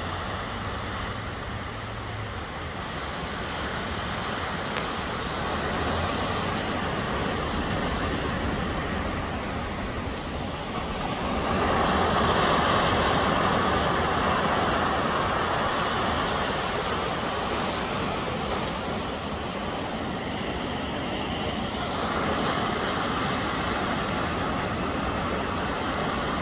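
Pacific surf washing and breaking around offshore rocks, a steady rushing wash that swells louder about twelve seconds in and then eases.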